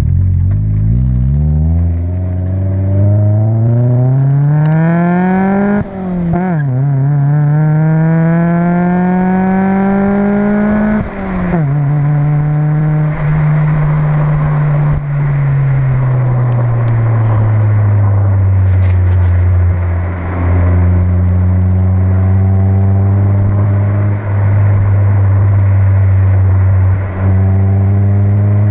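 Honda Civic EJ9's 1.4-litre D14 four-cylinder heard through an aftermarket N1 exhaust, close to the tailpipe. The engine revs up hard with a brief gear change about six seconds in, pulls up again, then drops in pitch about eleven seconds in and settles into a steady low drone.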